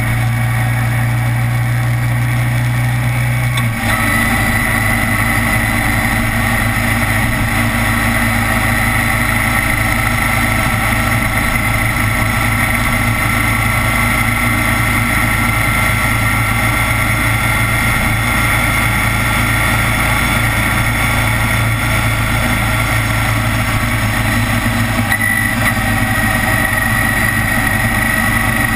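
Kawasaki Vulcan 900's V-twin engine running continuously. It holds a steady low note for the first few seconds, then changes abruptly about four seconds in and runs on with a rougher, noisier sound.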